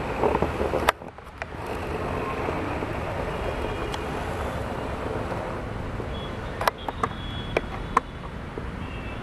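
Steady outdoor background rumble and hiss, dropping away sharply for a moment about a second in, with several sharp clicks in the last few seconds.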